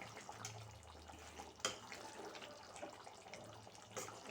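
Chicken masala gravy simmering in a pot with a faint bubbling. Two sharp clicks come through, one about one and a half seconds in and one near the end.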